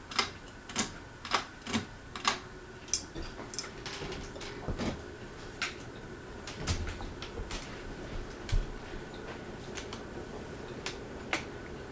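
Hampton Bay Courtney ceiling fan running on high speed with a steady faint motor hum, overlaid by sharp irregular clicks that come thick and fast at first and thin out over the following seconds.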